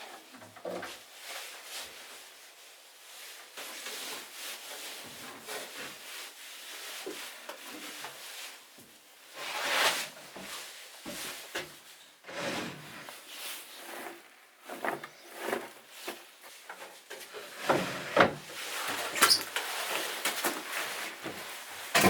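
Irregular scraping, rubbing and knocking of wood being handled, with a louder knock about ten seconds in and a cluster of louder knocks near the end.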